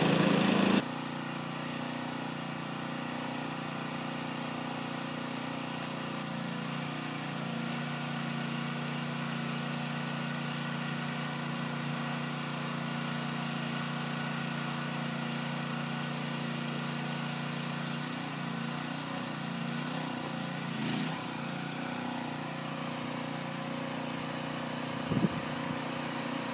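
Small engine running steadily at a constant speed, with one brief, sharper sound near the end.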